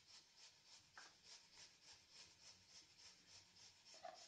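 Near silence: faint room tone with a soft, even pulsing hiss about three times a second and a faint click about a second in.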